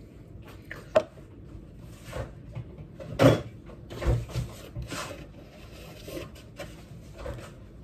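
Scattered knocks and clicks of kitchen things being handled and put down, with the sharpest about a second in and about three seconds in.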